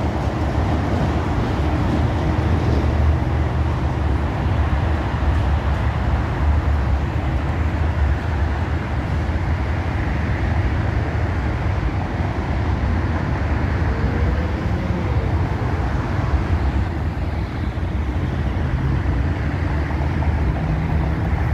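Steady engine and road noise of a vehicle moving along a freeway, a constant low drone.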